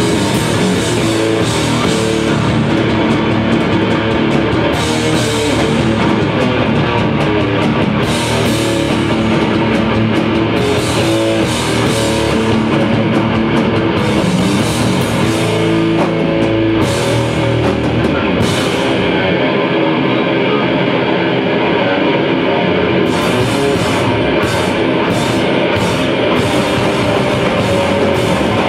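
A metal band playing live and loud: heavy distorted guitar and bass riffing over a drum kit. About 19 seconds in, the cymbals drop out for a few seconds, then come back in with a run of sharp hits.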